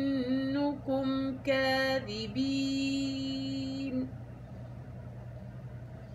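Qur'anic recitation in tajweed: one voice chanting a verse ending, with a long held, melodic note on the final word that stops about four seconds in. A faint steady low hum remains afterwards.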